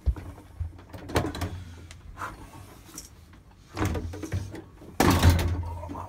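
Knocks and scraping of a boiler's heat exchanger being handled and slotted into its bracket inside the metal casing. There are a few sharp knocks in the first few seconds, then a louder scrape lasting about a second near the end.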